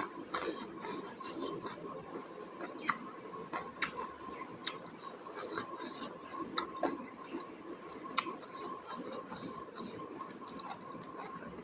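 Close-miked chewing and lip smacking of buffalo innards curry: irregular wet clicks and smacks, several a second, with a faint steady high tone behind.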